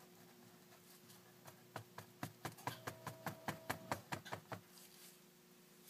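A quick run of light taps, about five a second for roughly three seconds starting about two seconds in, from a hard utensil or container being worked at the raw soap batter.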